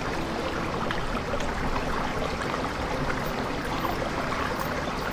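Shallow water running steadily along a concrete irrigation channel and splashing over a small drop, at its usual calm flow.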